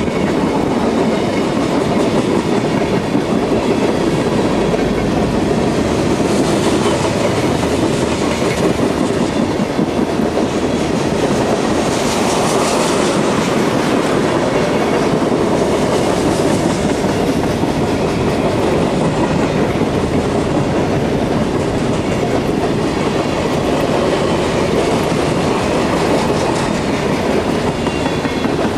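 Freight cars of a long mixed freight train rolling past at speed: tank cars, covered hoppers and container flatcars, with steel wheels running over the rails in a steady rumble.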